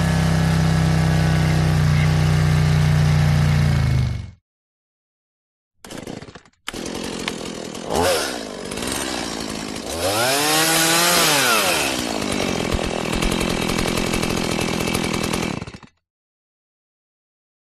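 Motorcycle engine running at steady revs, cutting off about four seconds in. After a short pause and a brief burst, a motorcycle runs again, with one rev that rises and falls, and it stops well before the end.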